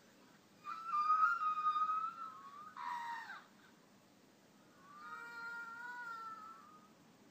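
Three drawn-out, pitched animal calls: a long, slightly wavering cry, a short one falling in pitch, then another long wavering cry.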